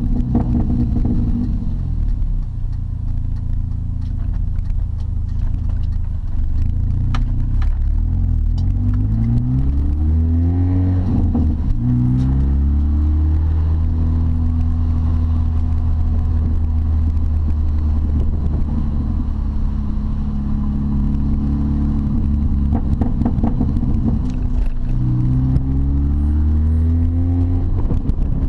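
Supercharged four-cylinder engine of an R53 Mini Cooper S with a straight-piped exhaust, heard from inside the cabin. It revs up through the gears, the pitch rising and dropping at each shift, settles into a steady cruise, and accelerates through the gears again near the end.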